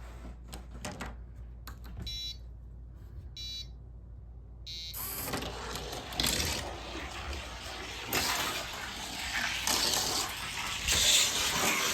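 Three short electronic beeps about a second apart, like a starting countdown. Then a die-cast toy car runs down a plastic orange track, with a steady rushing rattle that grows louder.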